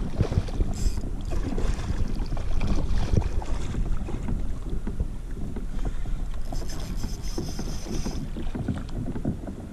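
Wind rumbling on the microphone over water sloshing and small irregular knocks around a kayak, with a short high hiss about two-thirds of the way in.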